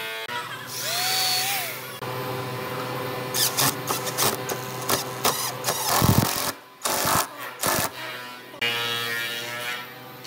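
Handheld power drill boring into a weathered railroad timber, the motor running steadily. A run of sharp clicks and knocks comes in the middle.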